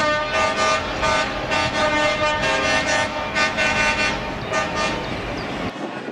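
Truck horns tooting in a run of short notes that change in pitch, cutting off near the end.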